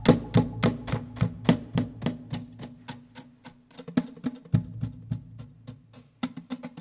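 Percussive music: a fast run of dry clicks and knocks, several a second, over a low held tone. It fades through the middle and starts up again shortly before the end.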